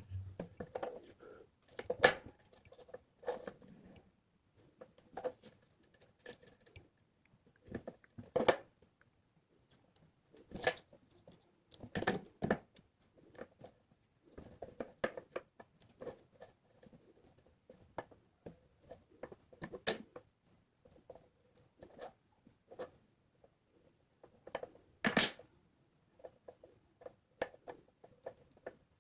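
Hands handling small electronic parts and wires on a work surface: irregular clicks, taps and rustles, with a few sharper knocks.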